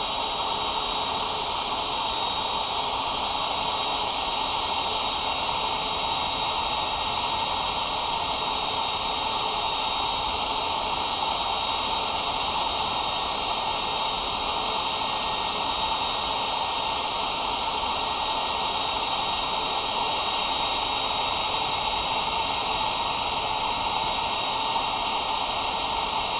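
Electric hair dryer running on high, a steady whoosh of air with a faint high whine, blowing hot air into the intake of a cold 168F diesel engine to warm it for starting in freezing weather.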